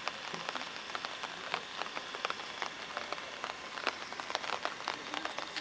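Rain falling: a steady patter of irregular drop ticks.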